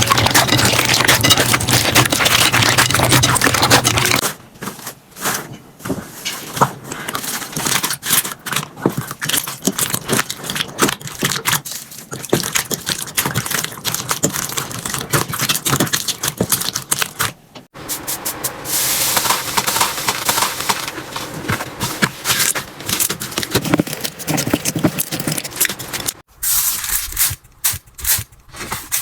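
Slime being handled by hand, squished, pressed and pulled, with dense crackling and popping; the texture changes abruptly a few times between clips.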